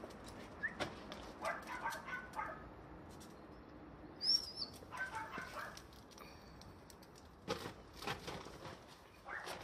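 Dog whining softly in short calls, twice, with a single short high chirp between them and a few light clicks near the end.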